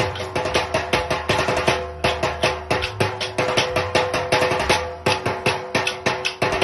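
Fast, steady rhythm beaten on improvised metal percussion: brass plates and tin cans struck many times a second, with a sustained metallic ring under the strikes.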